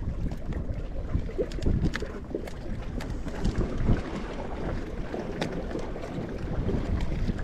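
Wind buffeting the microphone in a steady, uneven rumble, with faint scattered clicks.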